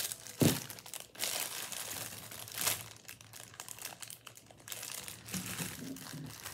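Crinkling and rustling of packaging handled by hand, with a sharp knock about half a second in.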